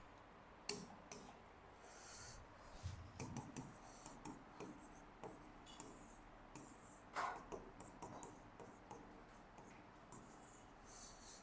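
Faint handwriting: short scratching strokes and light taps of a writing tip as figures are worked out, with a sharper tap about three-quarters of a second in and another about seven seconds in.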